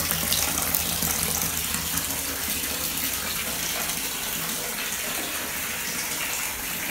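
Bathtub filling from the tap: a steady rush of running water pouring into the tub.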